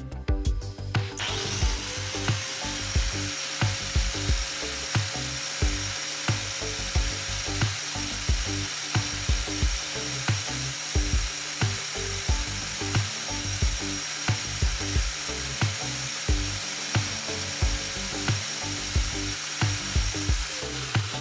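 Angle grinder fitted with an abrasive sanding disc starts about a second in and runs with a steady whine while grinding the point of a twist drill bit, throwing sparks. Near the end it is switched off and the whine falls as the disc spins down. Background music with a steady beat plays throughout.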